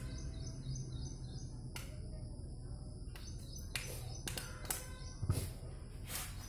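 Birds chirping over a steady low background hum, with several short sharp clicks and knocks as a rubber footrest cover is handled against the motorcycle's metal footrest bracket; the loudest knock comes about five seconds in.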